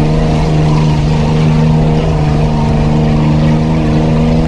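Off-road 4x4's engine running at steady revs, heard from inside the cabin, with a low rumble underneath.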